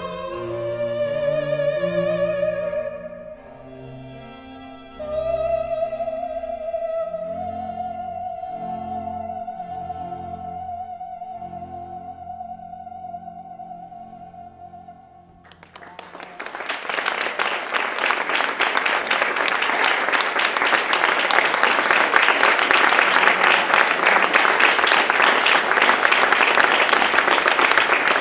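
Operatic music with a singing voice holding long wavering notes over lower instrumental notes, fading out about halfway through. An audience then bursts into applause that continues loud and steady to the end.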